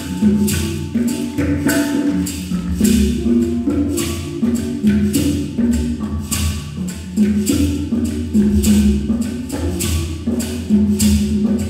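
Background music with a steady percussion beat over low sustained notes.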